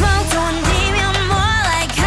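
Background pop music: a sung melody over a steady bass and beat.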